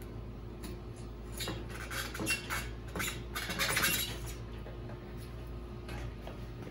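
Metallic clinks, rattles and scraping as a bicycle's rear wheel is worked loose and pulled out of the frame's dropouts, mostly from about a second and a half to four seconds in.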